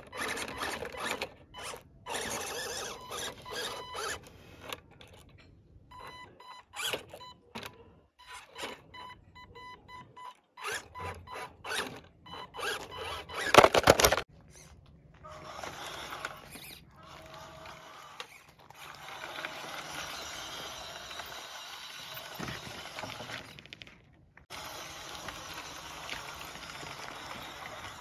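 Small electric RC crawler cars' motors and gearboxes whirring in stops and starts as they climb, with one loud clatter about halfway through and a steadier run of whirring in the last third.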